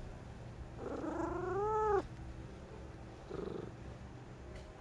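Brown tabby cat purring steadily while being stroked, a sign it is content. About a second in it gives one long meow, rising in pitch and cut off abruptly after about a second.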